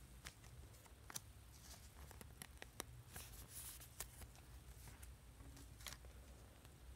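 Faint rustling and scattered light clicks of trading cards being handled and slid over one another as a pack is flipped through.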